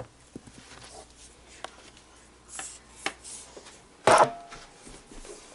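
Handling noise: scattered light knocks, clicks and rustles, with one loud sharp knock about four seconds in that rings briefly.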